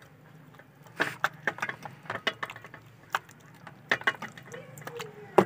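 Hands kneading a wet yogurt-and-spice marinade into raw chicken leg pieces in a steel bowl: irregular squelches and sharp clicks, several a second in bursts.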